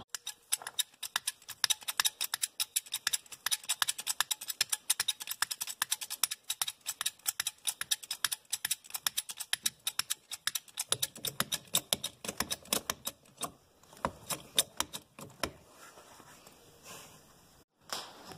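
Rapid, irregular sharp clicks and taps, several a second, thinning out toward the end.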